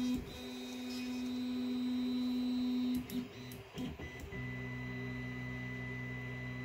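Sunlu S8 3D printer's stepper motors homing. A steady motor whine runs as the print head travels, breaks off about three seconds in with a few clicks, then a lower, steadier hum starts at about four seconds as the head begins a slow descent.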